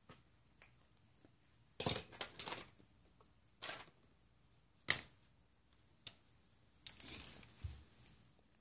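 A large paper map sheet being handled, giving a few short crinkling rustles, the sharpest about two and five seconds in.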